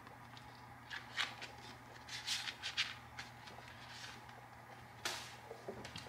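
Soft rustles and crinkles of a paper challenge sheet and a clear plastic cash sleeve being handled, in a few short bursts.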